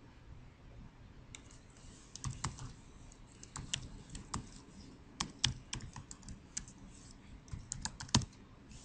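Computer keyboard typing: a run of irregular, fairly quiet key clicks that starts about a second and a half in and stops just before the end.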